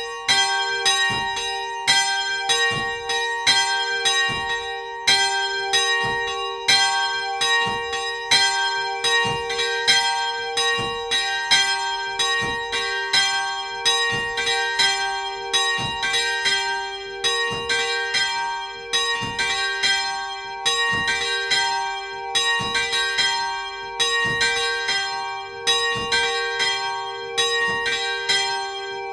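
Two Paccard bronze church bells, tuned G4 and B-flat4, swing-ringing together up close in the belfry. Clapper strokes come about every half second in an uneven, overlapping rhythm, each ringing on into the next.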